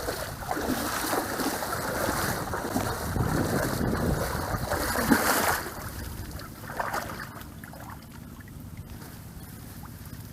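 Shallow swamp water sloshing and splashing, loud for the first five or so seconds, then dying down to a faint wash.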